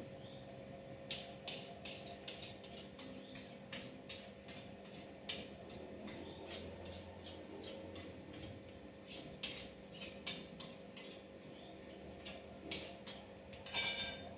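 Kitchen utensils clinking and tapping against cookware in a series of irregular light clicks, over a faint steady hum.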